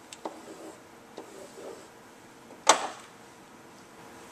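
A SmartBoard pen tapping and dragging on the interactive whiteboard's surface while a word is handwritten, heard as a few light clicks, then one loud knock about two and a half seconds in.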